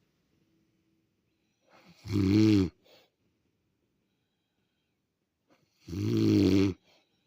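A woman snoring: two loud snores about four seconds apart, each under a second long and rising then falling in pitch.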